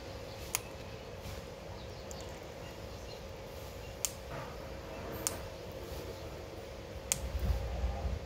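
Ringneck parrot eating guava: four sharp, separate clicks of its beak, a second or more apart, over a steady faint hum. A low rumble comes in near the end.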